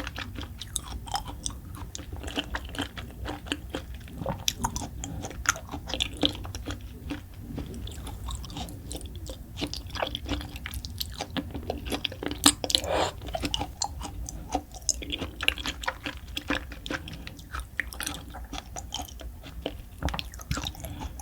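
Close-miked chewing of raw food, with many irregular wet clicks and smacks from the mouth.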